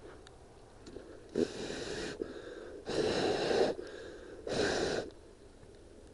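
A person breathing hard close to a helmet-mounted camera's microphone: three heavy, rushing breaths about a second and a half apart.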